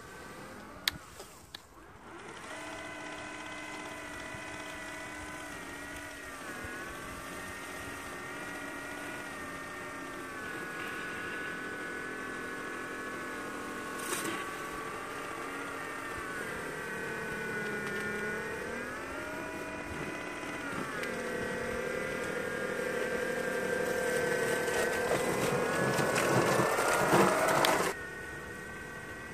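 Small 3D-printed remote-control snow blower's motor whining as it throws snow, its pitch dipping and recovering several times and the whine growing louder toward the end. A click sounds about a second in and a knock midway, and the whine cuts off abruptly near the end.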